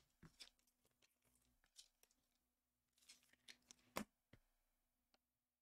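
Near silence with faint rustles and clicks of trading cards being handled, the loudest a short tap about four seconds in.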